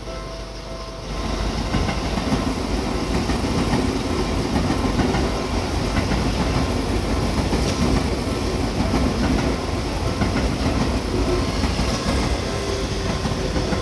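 Electric commuter train passing over a level crossing: about a second in, the rush of wheels on rail swells up and stays loud. The crossing's warning bell keeps ringing beneath it.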